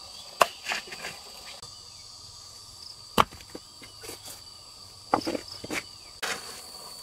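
A steady, high-pitched drone of insects, with scattered sharp knocks and thuds of hand work over it. The loudest knock comes about three seconds in, and a quick cluster follows about five seconds in.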